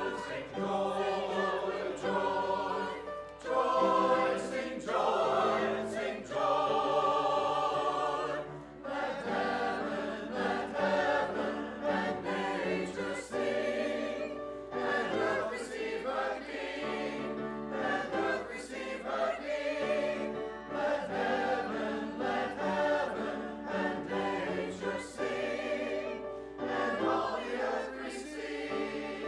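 A choir singing, phrase after phrase, with brief dips between phrases.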